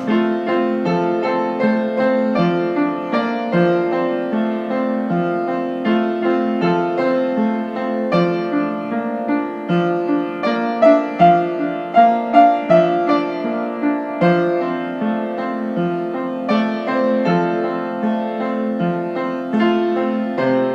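Piano music: sustained chords and a melody, with a few louder higher notes struck about halfway through.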